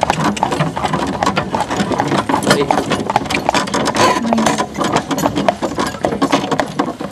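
A horse walking on a gravel track: a rapid, irregular clatter of hooves and rattling tack, mixed with knocking from the jostled camera.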